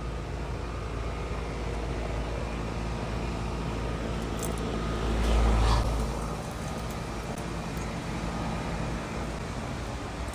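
Steady low machine rumble with a faint hum, swelling briefly about five seconds in.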